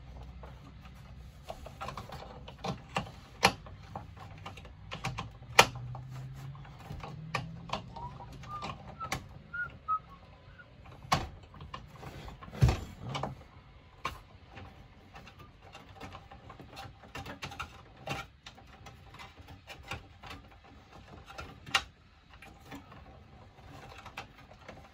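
Irregular clicks, taps and knocks of hands fitting wiring connectors and parts into the metal housing of an RV converter power center, with a few sharper knocks about 3, 5, 11 and 12 seconds in.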